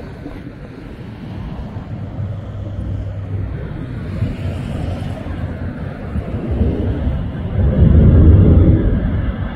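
Fighter jet flying in, its jet engine noise a low rumble that grows steadily louder and is loudest about eight seconds in.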